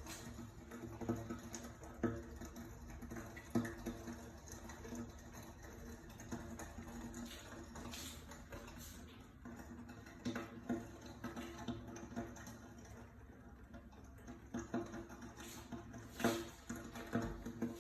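Samsung air-conditioner indoor unit, switched off, making irregular popping and crackling clicks, like popcorn, during rain; the owner does not know the cause.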